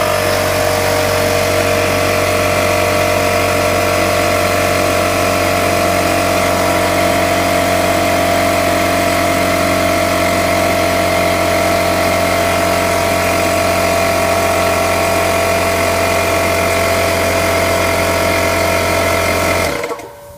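Electric air compressor running steadily under test, a constant motor hum with strong even tones, then switching off near the end.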